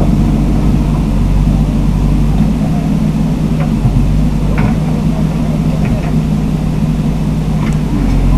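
Bulldozer's diesel engine running at a steady pitch, with a few faint clicks on top.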